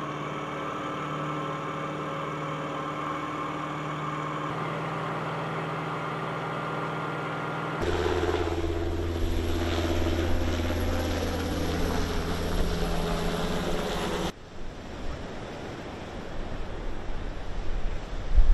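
Amphibious assault vehicle's diesel engine running steadily while it swims. About eight seconds in, a deeper, louder engine hum takes over. After about fourteen seconds it gives way to wind and surf, which grow gusty near the end.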